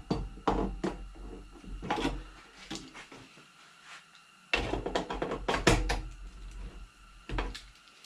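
Pliers clicking and knocking against the metal wing nuts and burner housing of a kerosene heater as the nuts are loosened: scattered sharp metallic clicks, with a busy run of knocks and rattles in the middle.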